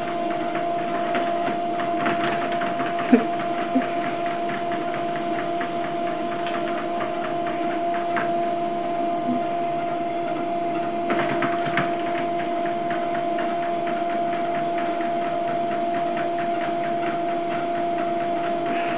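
Electric treadmill running: a steady motor whine under the moving belt, with light ticking and one sharp knock about three seconds in.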